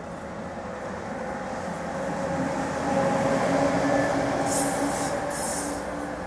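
NJ Transit ALP-45DP locomotive and multilevel coaches passing close by. The sound builds to a peak about halfway through, with a steady hum, then eases off. A brief high hiss comes near the end.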